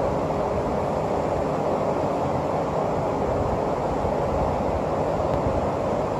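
Steady low rushing background noise of a large gym, with no distinct impacts or voices.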